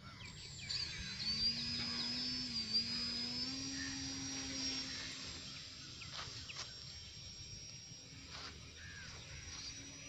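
Small electric motor and propeller of a foam RC trainer plane whining at full throttle as it is hand-launched and climbs away. The pitch steps up slightly about a second in, and the whine grows fainter after about five seconds as the plane gains distance.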